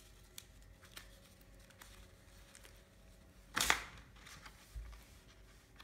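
Small paper and card doll accessories handled in a quiet room: a few faint taps and one brief, louder handling noise about three and a half seconds in.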